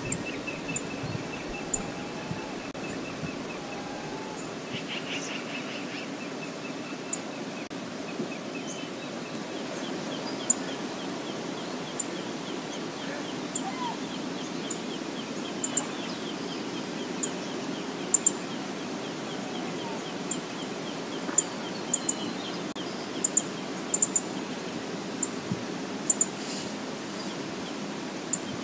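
Outdoor riverside ambience: a steady low rush under short, high bird chirps that come irregularly throughout, with a faint rapid trill now and then.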